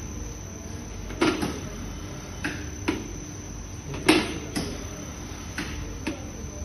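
Dough-cutting machine running with a steady hum, with sharp mechanical clacks at irregular intervals about every half second to a second, two of them louder than the rest.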